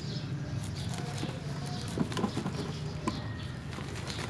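Small knife cutting through a dense, root-bound aglonema root ball, with scattered small crackles and snaps as the roots part.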